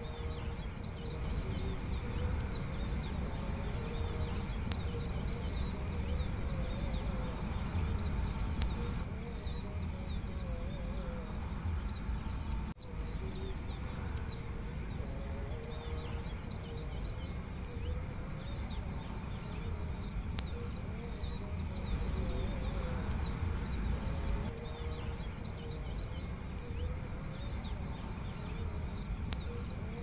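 Crickets trilling steadily in high continuous tones, with many small birds chirping in quick short notes over them and a low steady rumble underneath. The sound drops out briefly about 13 seconds in.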